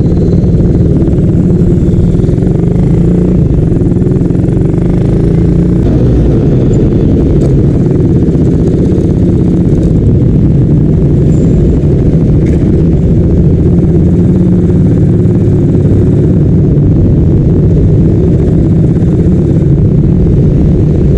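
Motorcycle being ridden, heard from the rider's onboard camera: a loud, steady low rumble of engine and riding noise with no pauses.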